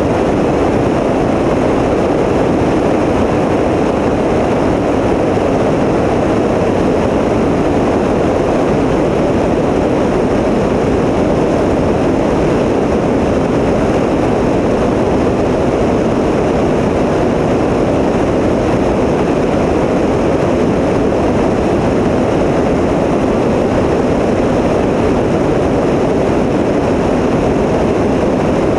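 Tecnam P92 light aircraft's piston engine and propeller running steadily in flight, an even drone with no change in pitch or level.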